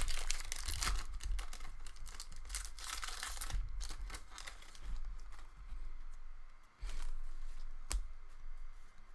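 Foil wrapper of an Upper Deck Series 1 hockey card pack crinkling and tearing as it is ripped open, with dense crackling for the first three seconds or so. Then come sparser rustling and a few sharp ticks as the cards are handled.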